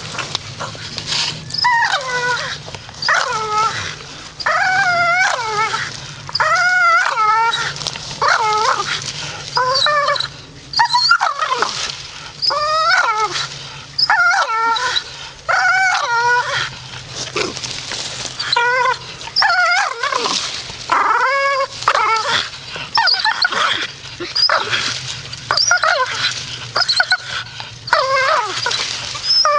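Staffordshire bull terrier making a long run of whining, howl-like vocalisations, about one a second, each call bending up and down in pitch.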